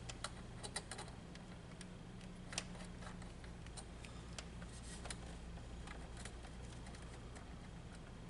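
Scattered small clicks and taps of a screwdriver and wire working against the metal neutral bar of a breaker panel, landing a GFCI breaker's neutral pigtail, a few sharper clicks in the first few seconds, over a low steady hum.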